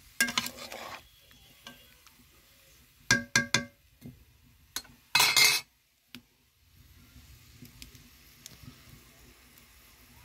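Metal ladle stirring and scraping in a metal karai of curry, then three ringing clinks of metal on metal about three seconds in and another loud scrape about five seconds in. After that the curry simmers faintly in the pot.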